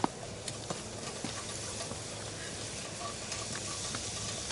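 Breakfast sausage sizzling steadily in a frying pan on a camp stove, with a sharp tap at the very start and a few light scrapes of a spatula stirring it.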